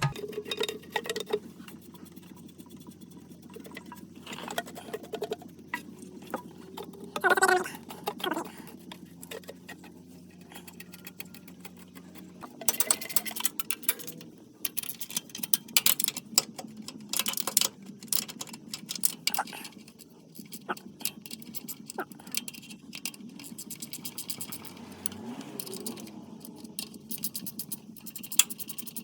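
Hand tools tightening mounting bolts on a vehicle: irregular metallic clicks and taps from a wrench or ratchet, coming thicker and sharper about halfway through.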